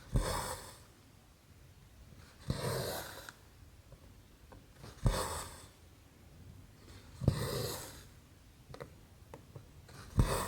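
Cross-stitch needle popping through 11-count stamped cross-stitch fabric, each time followed by a short rasping swish of embroidery thread being drawn through. This repeats about every two and a half seconds, five times.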